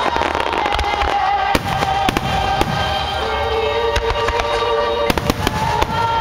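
Fireworks shells bursting and crackling in quick succession over music.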